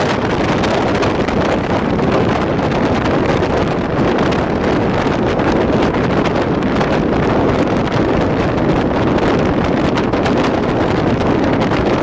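Steady rush of wind buffeting the microphone over the running noise of a moving passenger train.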